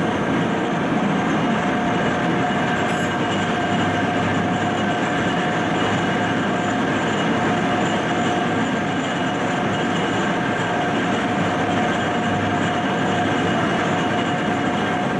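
Train running steadily on the rails: a constant rumble with a steady high whine.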